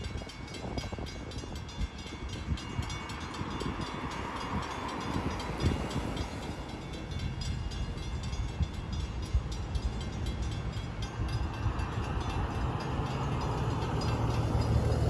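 Diesel freight locomotive approaching, its engine rumble getting gradually louder, with a steady low drone building near the end.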